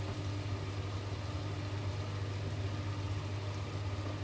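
Steady low machine hum, even throughout, with no other event.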